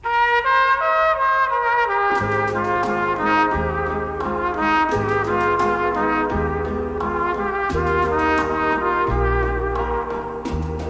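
Instrumental background music with a horn-like lead melody; a low bass line comes in about two seconds in and moves note by note.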